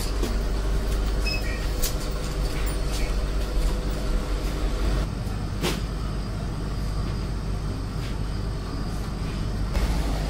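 Steady low rumble of street traffic, with a few sharp clicks, the loudest about six seconds in.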